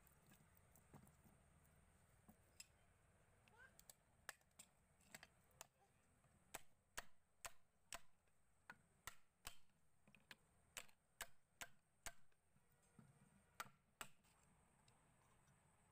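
Faint, sharp metallic clicks and taps, a few at first, then an irregular run of about two a second through the middle. They come from a hand tool and fingers working the fixing bolts as a domestic water pump's motor is fitted back onto its pump housing during reassembly.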